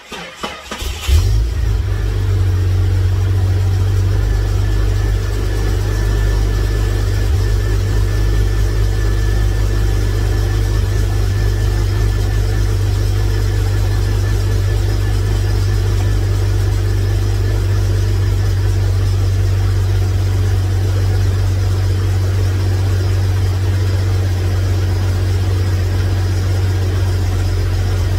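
Jeep engine cranking and catching about a second in, then idling steadily. The freshly installed power steering pump has air in its fluid, and a faint high whine runs over the idle for a while; this is the noise expected until the system is bled.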